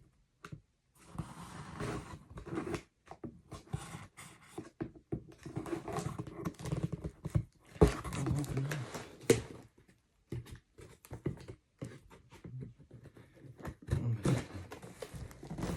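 Cardboard box and packing material being handled and pulled open: bursts of rustling and scraping with short pauses, and a few sharp knocks, the loudest about eight seconds in.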